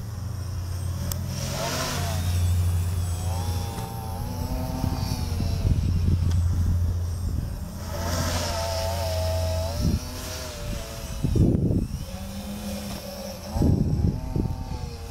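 Quadcopter's electric motors and propellers buzzing in flight, the pitch rising and falling again and again as the throttle and attitude change during aggressive manual manoeuvres. A few loud low rumbles break in near the end.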